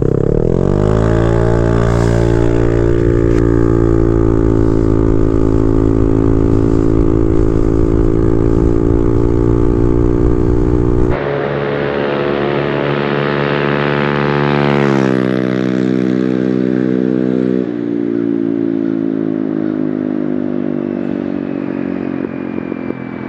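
Honda Navi's 110cc single-cylinder engine through a Yoshimura exhaust with the silencer removed, loud. It revs up and holds a steady high pitch under full throttle with no gear changes. Then it passes by, its pitch dropping sharply as it goes past and trailing off.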